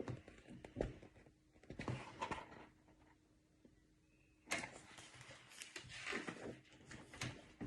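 Faint rustling and small clicks in a quiet small room, in scattered short patches.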